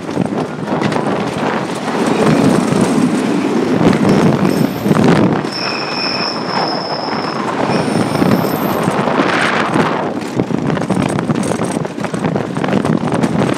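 Cyclone wooden roller coaster train rumbling and rattling along its track at speed, heard from on board. About five seconds in, a high-pitched wheel squeal rings for roughly two seconds.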